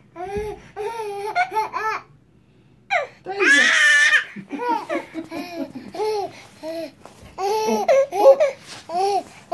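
Baby laughing in repeated high-pitched, excited squeals and giggles, with one louder shriek about three and a half seconds in.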